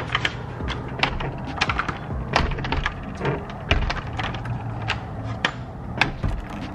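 Irregular light clicks and knocks, a few a second, over a low steady hum: handling noise from a phone being carried by hand.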